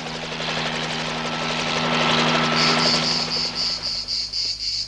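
Helicopter running, a steady drone that fades out shortly before the end. From about halfway through, insects chirp in a high, even rhythm of about four chirps a second.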